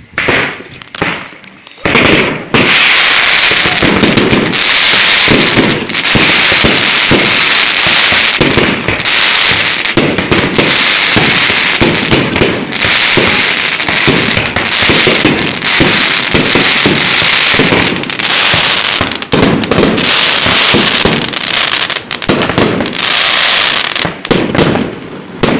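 Fireworks display going off: a few separate bangs, then from about two seconds in an almost unbroken barrage of bangs and booms over a dense crackling hiss.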